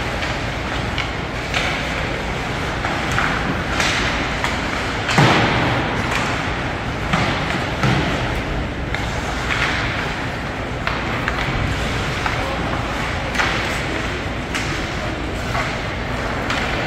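Knocks and thuds from play in a team game, scattered irregularly over a steady background din; the sharpest impact comes about five seconds in.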